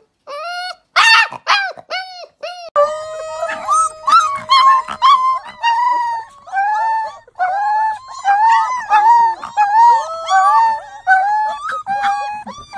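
Husky-type puppy howling in a run of short, wavering, high-pitched howls, about two a second. A longer, steady, lower howl is held beneath them for about four seconds partway through.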